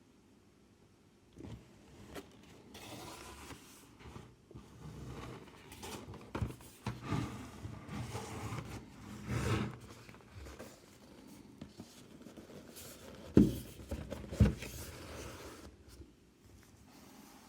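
Cardboard slipbox and digipack of a Blu-ray box set being handled: irregular scraping and rustling of card, with two sharp knocks about a second apart near the end.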